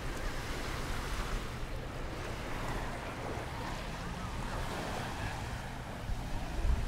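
Surf washing onto a sandy beach, with wind rumbling on the microphone and a stronger gust near the end.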